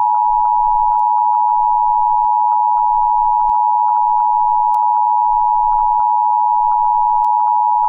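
Emergency Alert System attention signal: a loud, steady, unbroken alarm tone held throughout.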